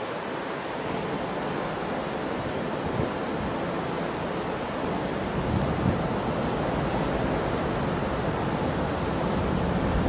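Wind blowing on the microphone: a steady rush with a low rumble that grows stronger about halfway through.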